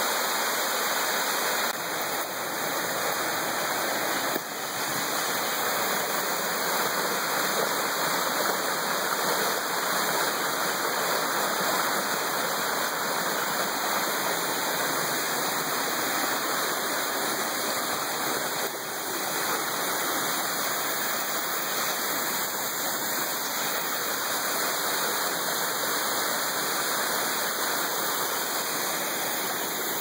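Waterfall: white water rushing steadily over rocks.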